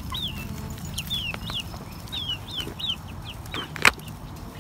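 Chickens calling in short, high, falling chirps, several a second, with one sharp knock just before the end.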